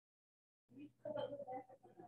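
Faint, indistinct voice starting about two-thirds of a second in, with a steady low hum beneath it, after dead silence.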